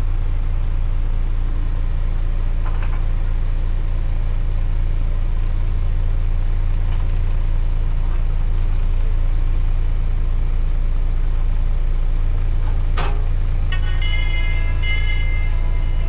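Steady low drone of a heavy diesel engine running at idle. About fourteen seconds in, a simple melody starts over it.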